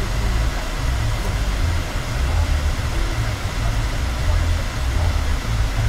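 Steady low rumble of a car driving along a street, heard inside the cabin: engine and tyre noise.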